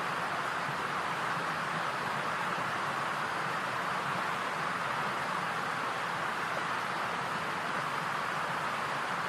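Steady, unchanging hiss of noise, brightest in the middle range, with no calls or other distinct sounds.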